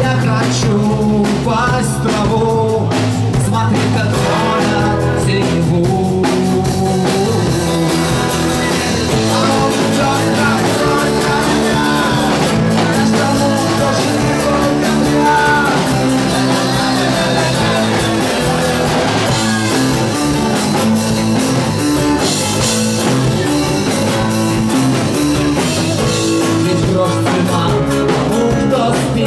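Live rock band playing: electric guitars, bass guitar and drum kit, with a man singing lead vocals.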